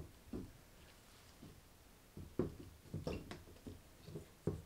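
Clear plastic cups of pouring paint being moved and set down on a plastic-covered table: a scattered series of light knocks and taps.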